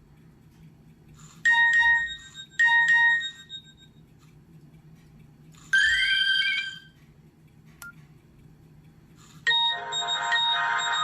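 Nokia 6682 ringtones being played one after another: a short electronic tone pattern sounds twice, about a second apart, then a different tone with a rising sweep, a single click, and near the end another ringtone melody starts and keeps playing.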